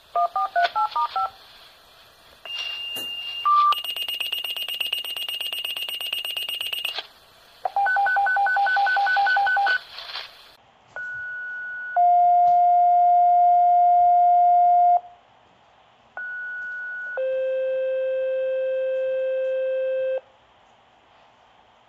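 Fire dispatch radio alerting tones. It opens with a quick run of touch-tone (DTMF) digits, then beeps, a pulsing buzz and a train of rapid two-note beeps. Then come two two-tone sequential pager activations, each a short higher tone followed by a long steady lower tone, setting off the fire companies' pagers.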